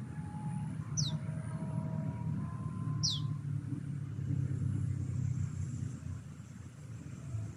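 Low, steady rumble that swells in the middle and then eases, with two quick high-pitched bird chirps falling in pitch, about two seconds apart.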